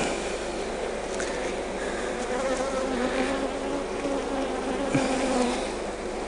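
Honey bees buzzing around an open hive, a droning hum that swells in the middle and fades near the end, with a few light knocks.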